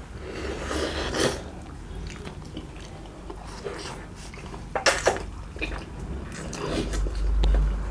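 Biting and chewing of chicken momos eaten without hands, straight from the plate. Short sharp mouth noises come about a second in and again around five seconds.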